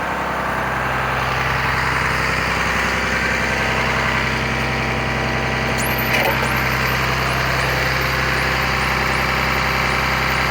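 Blue Bird TC/2000 school bus engine idling steadily. From about six seconds in, faint high chirps that rise quickly in pitch repeat about twice a second, from the bus's strobe lights flashing.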